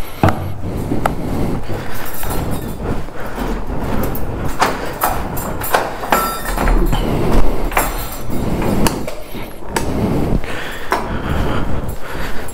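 A series of irregular knocks, clicks and clatters over a low rumble, loudest a little past the middle.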